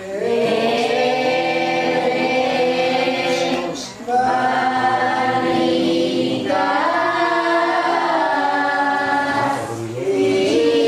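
A congregation of mixed voices singing a Kaharingan worship hymn unaccompanied, in long held notes. There are short breaks between phrases about four seconds in and again near the end.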